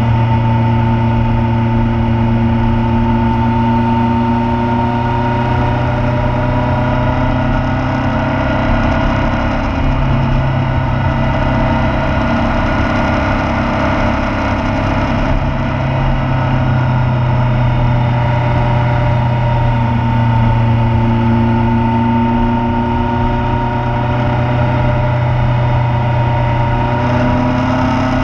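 Motorcycle engine running steadily while riding, its pitch easing down and rising again slowly a couple of times.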